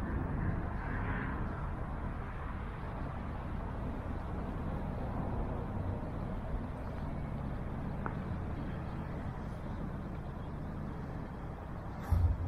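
Steady city street ambience of road traffic running, a continuous low rumble. A short loud thump comes about twelve seconds in.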